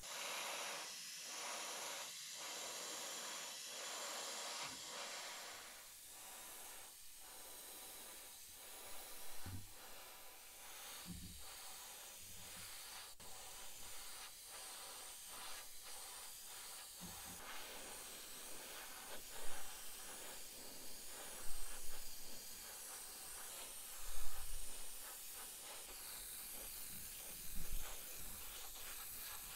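Gravity-feed airbrush spraying paint: a steady hiss of air, strongest in the first five seconds or so. A few soft knocks come in the second half.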